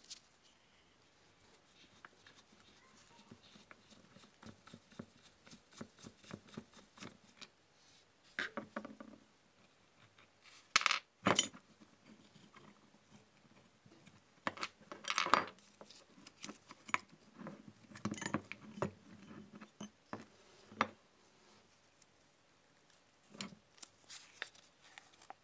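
Cast iron parts of an old coin bank clinking, knocking and scraping as they are unscrewed, pulled apart and set down on a table, in scattered short knocks with a few louder clusters in the middle.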